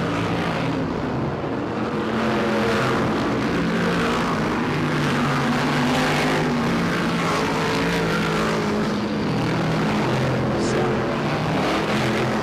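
A pack of BriSCA F1 stock cars racing, several V8 engines running hard at once, their overlapping notes wavering up and down as the cars go through the corners and along the straights.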